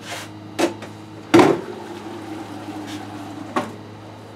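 Three sharp knocks and clunks of parts and tools being handled and set down on a wooden workbench, the loudest about a second and a half in, ringing briefly. A steady low hum runs underneath.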